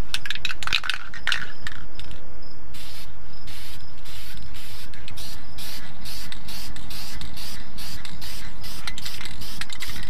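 An aerosol can of hammered-black spray paint. Its mixing ball rattles for the first second or so. From about three seconds in comes a steady run of short hissing spray bursts, about three a second.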